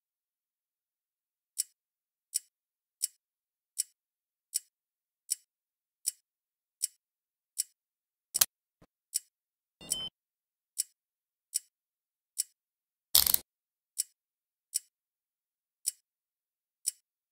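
A clock ticking steadily, about one light, high tick every three-quarters of a second, starting about a second and a half in. A few louder clicks and a short rustle-like burst break in around the middle.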